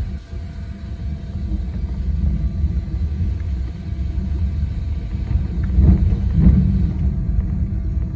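Running noise inside the cab of a 260-series narrow-gauge electric train pulling out of a station: a low rumble of motors and wheels on the rails that builds over the first two seconds and then holds steady. A pair of knocks comes about six seconds in.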